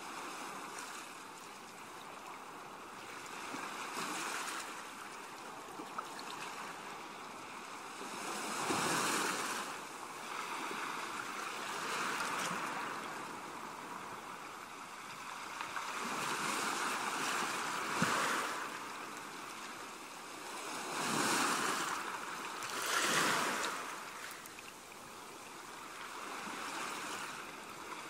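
Ocean waves washing onto a shore, swelling and falling back every few seconds.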